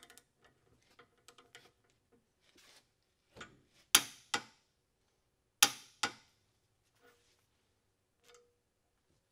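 Click-type torque wrench breaking at its set torque of 100 ft-lb on the oil rail nipple of a Ford 6.0 diesel high-pressure oil rail: two sharp clicks about four seconds in, and two more about a second and a half later, each pair a louder click and a lighter one. Faint ticking comes before them.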